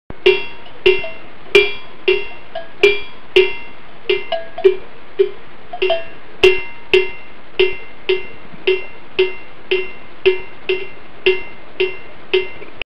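A cowbell clanking in a steady rhythm, about two strokes a second, over a constant hiss. It stops abruptly near the end.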